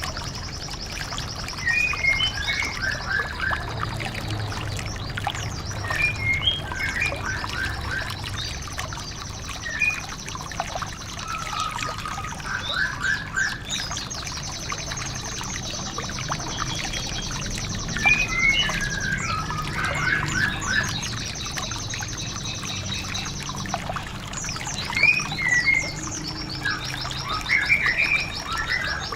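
White-eyes (pleci, Zosterops) singing: long high trills that keep coming back, broken by bursts of quick chirping notes, over a steady sound of running water.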